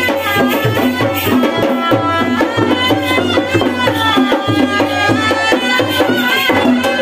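Traditional Indian folk music: a melody line, likely sung, over a steady beat of drums.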